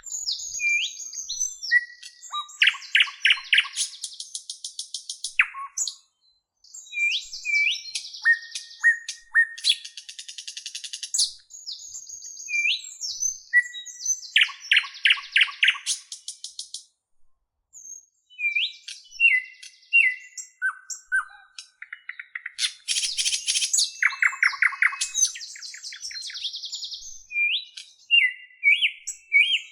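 A bird singing a varied song of short slurred chirps and fast rattling trills, in bouts broken by brief pauses.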